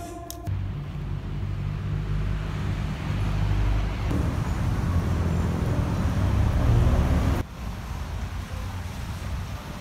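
City street traffic noise: passing cars with a low rumble. It builds over several seconds, then drops suddenly to a quieter street hum about three quarters of the way through.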